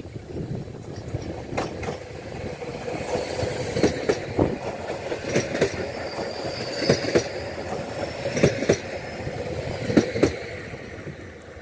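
Stadler FLIRT electric multiple unit arriving and passing close by. Its wheels clack over rail joints in pairs about every second and a half, over a steady running hum.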